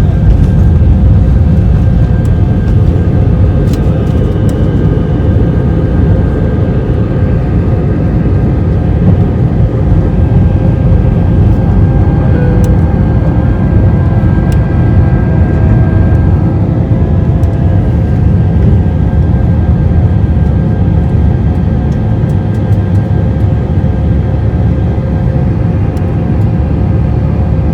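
Steady loud rumble of a British Airways Airbus A319's jet engines and rushing air, heard inside the passenger cabin during takeoff, with a few steady engine tones running through it.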